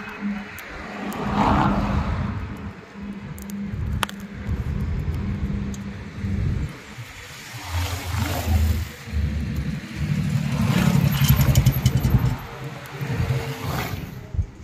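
A road vehicle's engine running, its level rising and falling.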